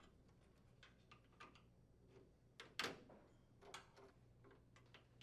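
Faint small clicks and ticks of wire connectors being pulled off the microwave's door switch terminals, a handful spread irregularly, the clearest near the middle.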